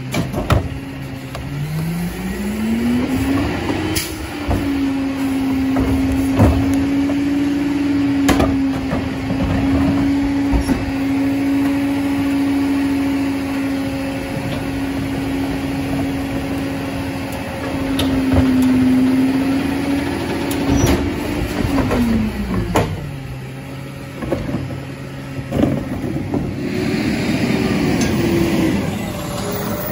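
Garbage truck's diesel engine revving up over the first few seconds and held at a steady high speed while the truck works trash, with several sharp knocks and bangs. It drops back to idle a little past twenty seconds in and revs up again near the end.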